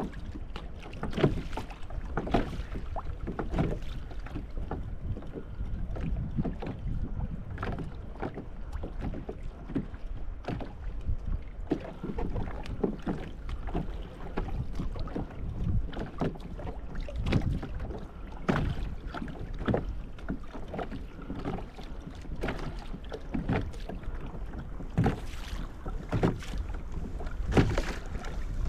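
Kayak on the sea with wind rumbling on the microphone and irregular knocks and slaps against the hull.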